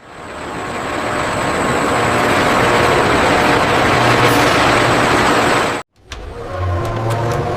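Steady rushing noise of factory machinery that swells over the first couple of seconds, holds, then cuts off abruptly about six seconds in, giving way to a lower hum with a few faint clicks.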